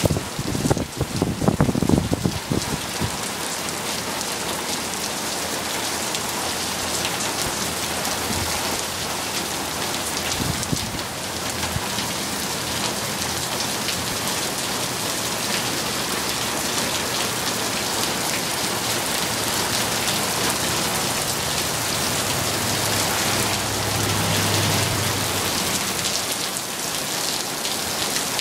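Steady rain falling and pattering on pavement and parked cars, with a few louder knocks in the first couple of seconds.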